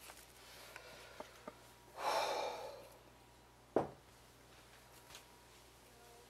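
A short breathy exhale, like a sigh, about two seconds in, then a single sharp knock a little under two seconds later, with a few faint ticks in between.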